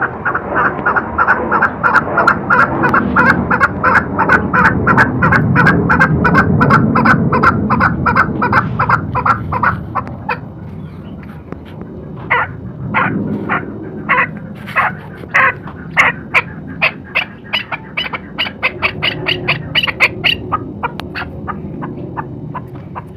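Male chukar partridge calling: a long, fast run of short repeated notes lasting about ten seconds, then a short break, then spaced notes that speed up again into another quick series.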